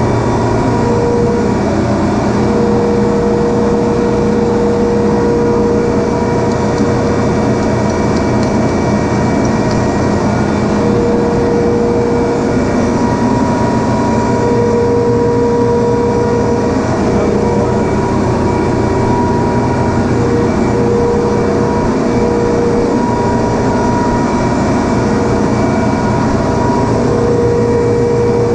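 Refrigeration compressor machinery running steadily and loudly, a constant mechanical drone with a high whine that swells and fades every few seconds.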